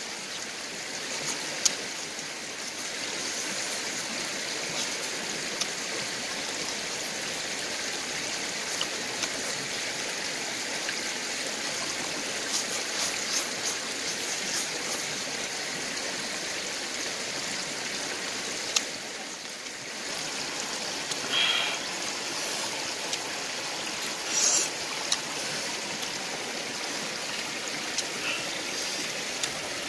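Steady rush of flowing water, like a stream, with a few short clicks and two brief louder sounds over it.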